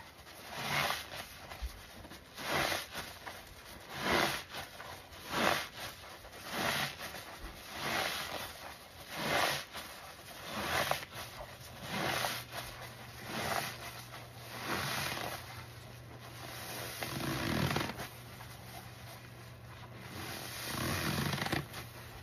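Foam-soaked sponges squeezed by a gloved hand in a sink full of thick suds: wet squelching and squishing about once every second and a half, a dozen or so squeezes. Near the end come two slower, longer squeezes.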